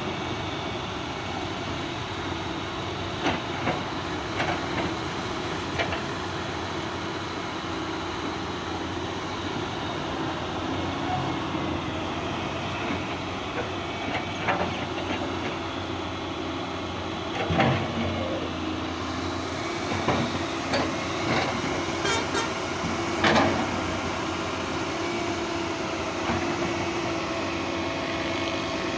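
Fiat-Hitachi FH150W-3 wheeled excavator's diesel engine running steadily under digging load, with scattered sharp clanks and knocks as the bucket works the canal bank; the loudest clanks come about two-thirds of the way through.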